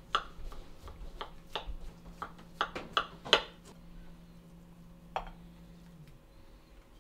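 Knife cutting through the flaky baked crust of a chicken pot pie in a glass pie dish, giving a run of short crunches and sharp clicks as the blade breaks the crust and knocks against the glass. The clicks come irregularly, thickest in the first three and a half seconds, with one more a little after five seconds.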